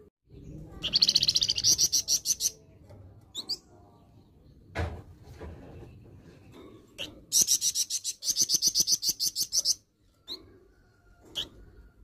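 Caged flamboyan songbird singing its harsh call: two bursts of rapid, high repeated notes, one about a second in and one at about seven seconds, with a few short single calls between them.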